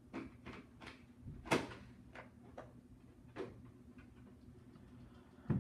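A string of sharp knocks and clicks at uneven spacing, about eight in all, the loudest about a second and a half in and another strong one near the end.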